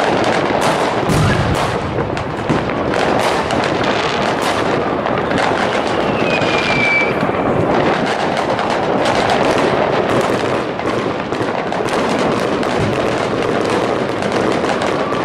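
A dense, unbroken barrage of fireworks and firecrackers crackling and banging all around, with a deeper boom about a second in and a brief falling whistle about six seconds in.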